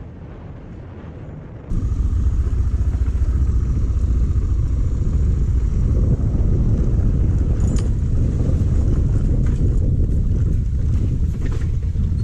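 Suzuki DR650 single-cylinder dual-sport motorcycle running as it rides a rough dirt trail, heard as a heavy, steady low rumble. It gets much louder about two seconds in.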